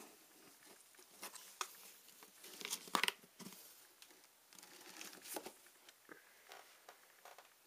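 A kitten scratching and scrabbling at a cardboard box, the cardboard rustling and scraping with scattered light knocks. The loudest scrapes come about three seconds in, with another flurry around five seconds.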